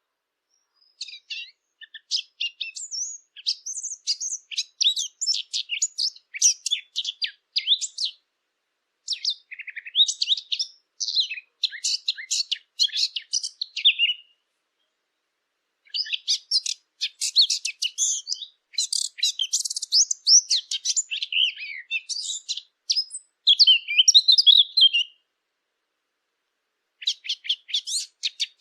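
A Sylvia warbler, the bird Arab hunters call the fig bird, singing long phrases of rapid, high, scratchy warbling notes. There are four bouts, each several seconds long, broken by pauses of one or two seconds.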